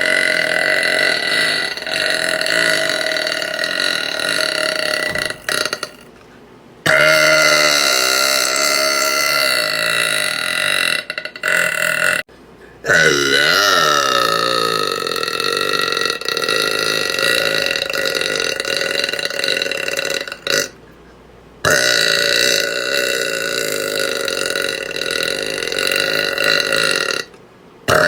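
A woman belching: about five long, drawn-out belches, some lasting six or seven seconds, separated by brief pauses.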